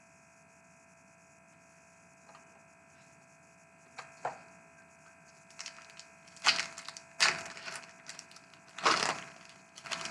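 Crinkling, ripping bursts of a hockey card pack's wrapper being torn open and handled. The bursts come in quick irregular clusters starting about four seconds in, over a faint steady electrical hum.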